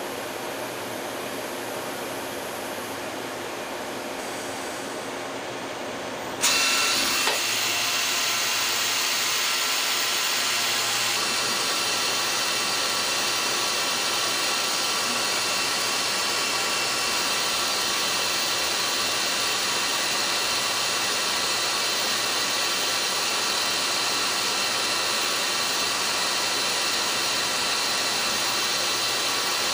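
Citizen Cincom M32 VIII Swiss-type CNC lathe machining: a steady whirring hiss with a thin high whine. About six seconds in it turns suddenly louder and brighter, with a short click a moment later, then runs on steadily as the B-axis tool contours the part.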